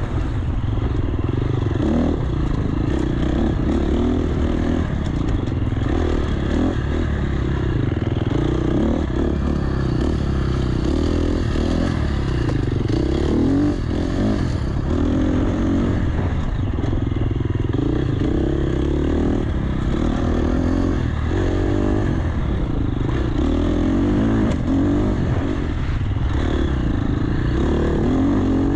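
Enduro dirt bike engine ridden along a rough trail, its revs rising and falling again and again as the throttle is worked, with occasional clattering.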